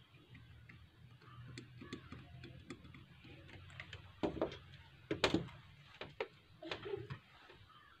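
Light clicks and taps of small tools and a circuit board being handled on a repair bench, over a low steady hum, with a few louder knocks about halfway through.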